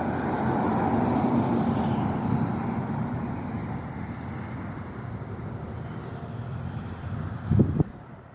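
A Ram pickup truck passing on the road: tyre and engine noise loudest about a second in, with a faint slightly falling engine tone, then fading as it moves away. Two short low bumps near the end.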